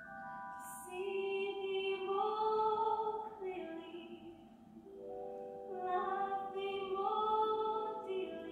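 A female voice sings a slow stage-musical song over soft accompaniment, in two long held phrases with a quieter dip between them.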